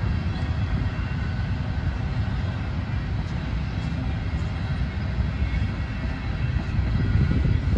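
Freight train of covered hoppers and tank cars rolling past: a steady low rumble of steel wheels on the rails.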